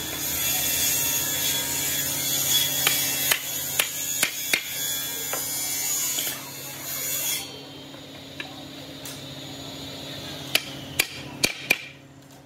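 Hammer tapping hardwood parts together as a leg is knocked into a slotted rail: a handful of sharp taps in the first half over a steady hiss that stops about seven seconds in, then four quick taps near the end.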